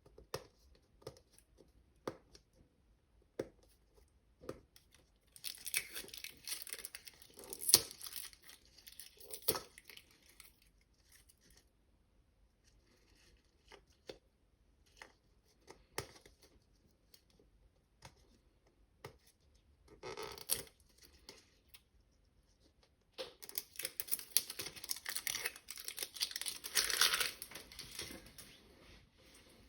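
Hands tearing open and crinkling the wrapping of an L.O.L. Surprise! doll package, in several rustling bursts, the longest near the end, with scattered light clicks and taps between them.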